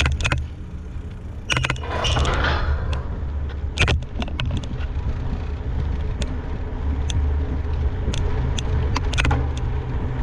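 A mountain bike being ridden, heard from a GoPro riding along: a steady low rumble of wind and tyres, with frequent sharp rattling clicks from the bike over bumps and a brief hissing rush about two seconds in.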